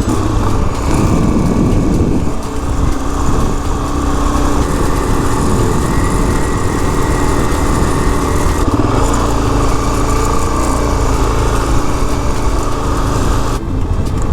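Suzuki DR-Z400S single-cylinder four-stroke engine running steadily as the motorcycle rides along, its note shifting a few times.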